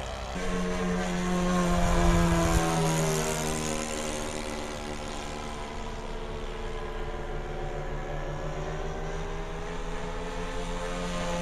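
Radio-controlled model Transall flying overhead, its twin propellers giving a steady drone. The pitch slides down as it moves off and rises again as it comes back around. Loudest about two seconds in.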